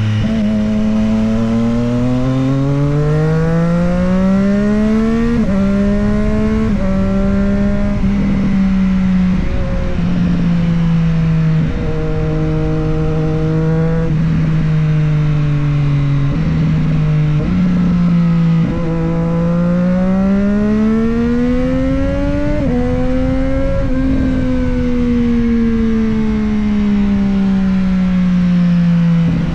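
Triumph Street Triple 765 RS inline three-cylinder engine and exhaust under way, climbing in pitch under throttle and dropping sharply at each quick upshift, about four shifts in the first third. It then settles and eases off, pulls hard again a little past halfway with another shift, and slows down near the end, over a steady rush of wind noise.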